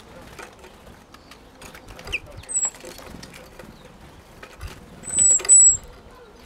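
Blue tit pecking at peanuts in a mesh net feeder, making a scatter of small clicks and taps. A bird gives high, thin whistled calls: a short one about two and a half seconds in, and a longer, louder pair around five seconds in.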